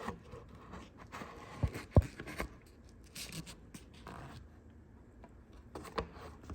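A pipe and its plastic quick-connect fitting being handled and tried into place on an engine: scraping and rubbing, with a few sharp knocks and clicks. The loudest knock is about two seconds in.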